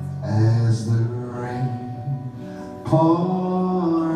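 Live band music: acoustic guitar played under a man singing, with a louder held sung note starting about three seconds in.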